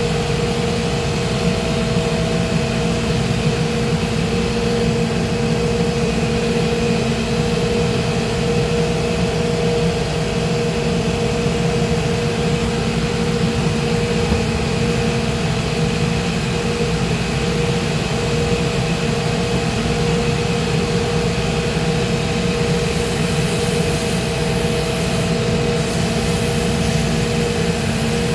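Shoe-repair shop machine's electric motor running steadily with a constant hum. A high hiss joins about five seconds before the end.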